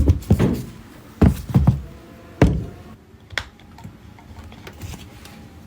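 Irregular knocks and thuds as an alternator's aluminium front and rear housings are knocked apart, about seven in the first two and a half seconds and one more a second later, then quiet working noise.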